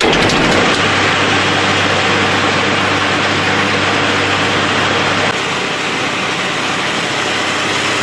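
Corn stalk silage baler running loud and steady, its machinery noise coming in suddenly at the start. A low hum within it drops away about five seconds in.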